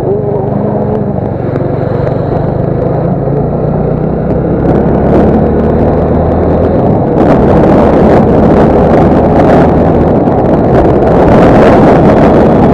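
Motorcycle engine running steadily while riding, with wind noise over the microphone that grows louder about seven seconds in.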